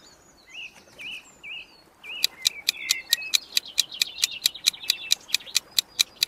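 Birds chirping, joined about two seconds in by a fast, regular ticking, about five ticks a second, which is louder than the birds: a countdown-timer tick sound effect.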